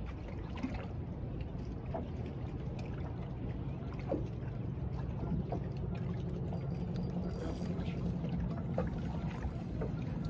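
River water lapping and splashing against a small fishing boat's hull, over a steady low hum.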